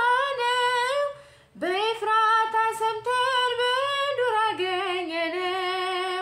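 A woman singing an Amharic Ethiopian Orthodox hymn (mezmur) solo and unaccompanied, drawing out long held notes that bend slowly in pitch. She breaks off briefly a little over a second in, then comes back in.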